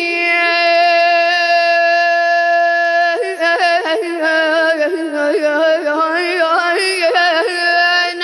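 A 12-year-old boy's solo voice chanting a Husseini latmiyya in the radood style: one long held note for about three seconds, then quick melismatic ornaments that waver up and down in pitch.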